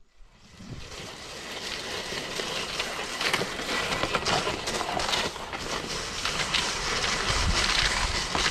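Runners of a one-dog kicksled sliding and scraping over packed snow as the dog pulls it off, building up over the first second into a steady noise full of small clicks and rattles from the sled. Near the end a low rumble of wind on the microphone joins in.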